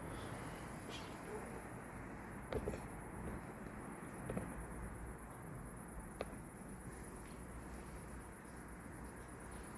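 Steady hiss of rain with a few short sharp ticks like drips, under a continuous high-pitched chirring of crickets.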